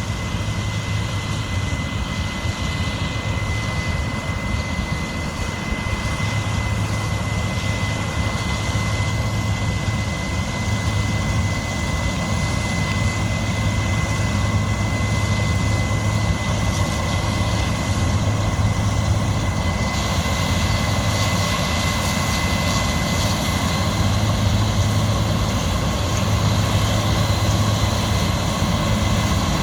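Heavy diesel harvest machinery running steadily: a deep engine hum with a thin steady whine above it. About two-thirds of the way in, a hiss in the upper range grows louder.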